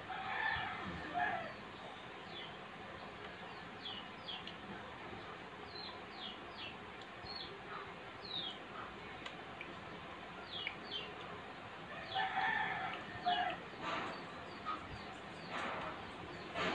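A rooster crowing twice, once near the start and again about twelve seconds in, while small birds chirp in short falling notes throughout.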